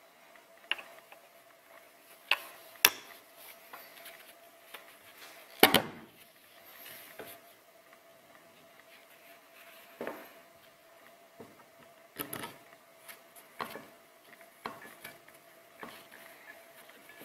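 Irregular clicks and knocks of plastic and metal parts being handled as the head cap of a pneumatic stapler is fitted back on after a piston replacement, with one louder knock about six seconds in.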